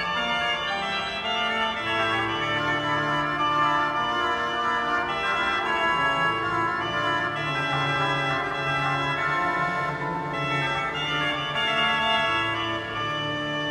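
Cologne Cathedral's pipe organ playing slow-moving sustained chords over held bass notes, the chords changing every second or so.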